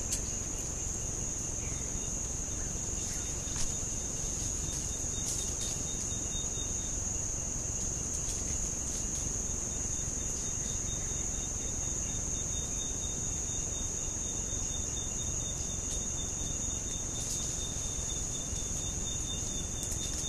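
Steady high-pitched drone of a rainforest insect chorus, with a thinner, fainter insect tone dropping in and out and one brief click a few seconds in.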